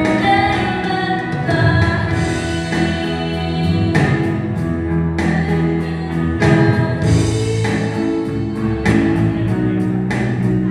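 Church worship music: voices singing a song together over instrumental accompaniment with a steady bass line.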